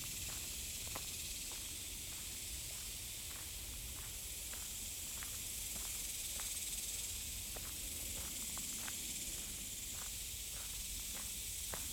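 Cicadas buzzing in the trees, a steady high hiss that does not let up, with faint irregular ticks of footsteps on the trail.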